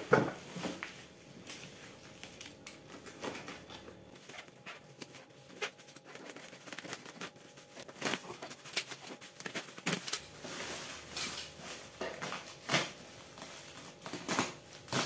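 Black bubble-wrap and packing-tape wrapping being cut with a utility knife and torn and crinkled off a cardboard parcel: irregular crackling, tearing and clicks, busier in the second half.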